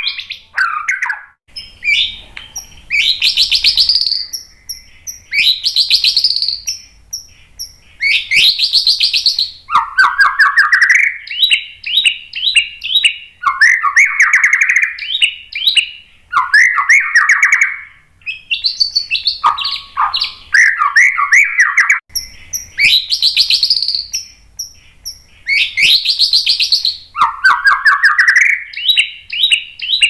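White-rumped shama (murai batu) singing its varied song: whistled phrases and fast rattling trills in bursts of a second or two, with short pauses between.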